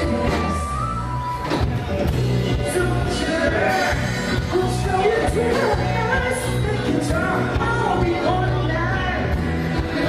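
Live band playing an upbeat pop-rock song: drums with regular cymbal hits, bass, guitar and keyboard under a lead singer, heard through a loud room.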